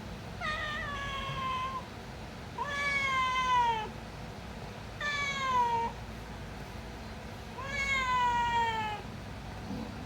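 Domestic cat meowing four times, each meow about a second long and falling in pitch, spaced a couple of seconds apart: a hungry cat begging for food.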